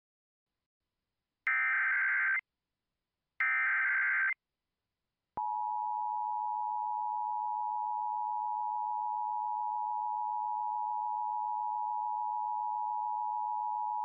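Emergency Alert System activation: two short bursts of digital SAME header data, about a second each, then the EAS attention signal, a steady two-tone (853 and 960 Hz) buzz held about nine seconds that announces an emergency voice message.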